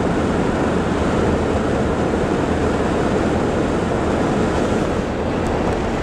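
Steady road noise of a moving vehicle heard from inside its cabin: an even rush of tyre and wind noise.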